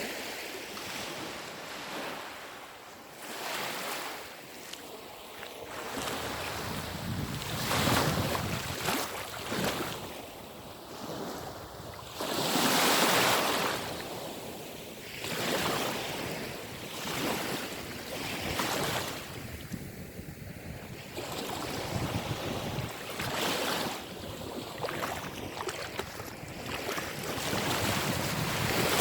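Small sea waves washing onto the shore, each surge rising and falling away every few seconds, with wind on the microphone.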